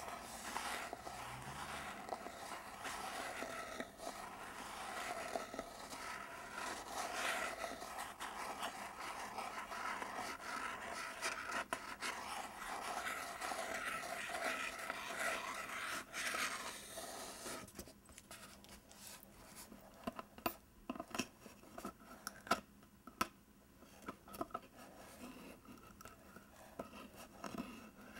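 Fingernails scratching steadily on a printed cardboard box. About two-thirds of the way in, this gives way to quieter, scattered taps and short scratches.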